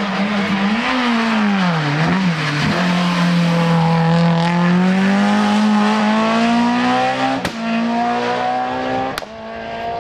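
Hill-climb race car engine dipping in pitch as it slows into a hairpin, then accelerating hard, its pitch climbing steadily. Near the end come two sharp cracks at upshifts, each followed by a drop in pitch.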